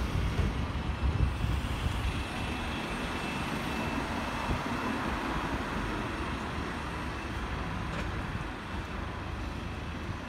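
Volvo hybrid double-decker bus pulling away from the stop and driving off, heard over steady street traffic, with wind gusting on the microphone in the first couple of seconds.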